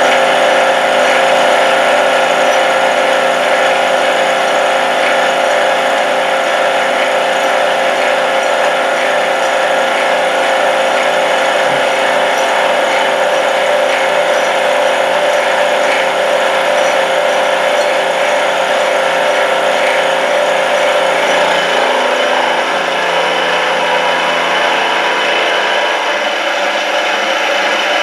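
CNC milling machine taking a cut in a metal block with a 25 mm indexable end mill fitted with APMT 1003 carbide inserts, at about 1600 RPM and 1 mm deep. The spindle and cutter make a steady, even whine, with a slight change in tone about three quarters of the way through.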